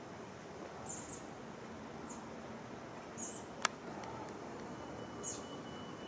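A small bird gives about five very short, high chirps over a steady background hiss. One sharp click comes a little past halfway, and a faint steady high tone starts near the end.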